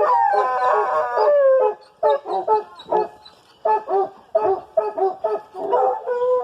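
Hunting hounds baying: a long drawn-out howl, then a run of short choppy barks, with another long howl starting near the end.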